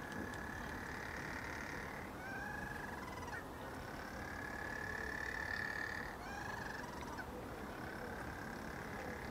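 Little penguin calling: a series of long, steady high-pitched notes, each lasting a second or two, broken by short breath-like notes in between, over a steady rushing background.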